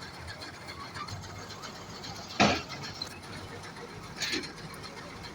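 Two metal clanks as an excavator climbs onto a truck: a loud one about two and a half seconds in that rings briefly, and a softer one about a second and a half later, over a steady background noise.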